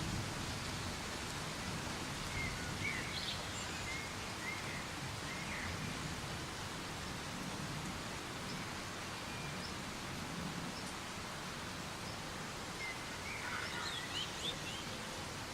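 Soft, steady rain hiss. A bird chirps briefly a few times, a few seconds in and again near the end.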